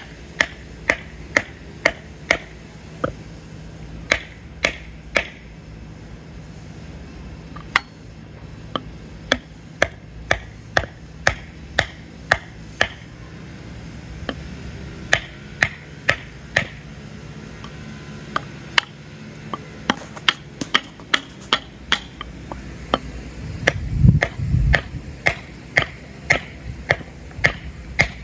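Metal-headed mallet striking a wooden block held on top of a steel ground stake, driving the stake into the ground: sharp knocks in runs of several at about two a second, with short pauses between runs. A short low rumble comes a few seconds before the end.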